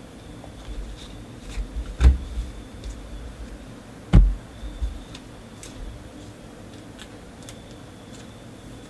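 Trading cards being handled and set down on a tabletop: two sharp taps about two and four seconds in, with lighter ticks in between.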